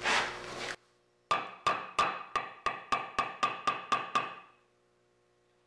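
A wooden mallet tapping a wooden sphere about eleven times in quick succession, three to four knocks a second, each with a short ring, driving the ball snugly into a wooden jam chuck on the lathe.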